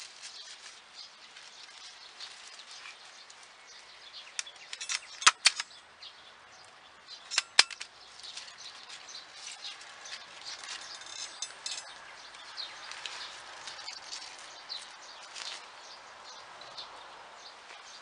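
Rain pattering steadily on the plastic sheeting of a vine house, a dense scatter of light ticks. A hand-held vine-tying tool (tapener) gives two sets of sharp clacks as it ties shoots to the trellis wire, about five seconds in and again about seven and a half seconds in.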